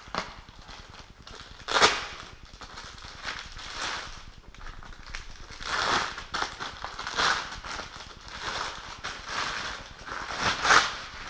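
Clear plastic wrapping crinkling and rustling in irregular bursts as it is pulled off a steel loudspeaker flying frame, loudest about two seconds in and near the end.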